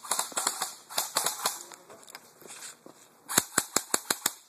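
Airsoft rifles firing: a flurry of sharp, snapping shots that thins out, then a quick string of about seven loud shots near the end.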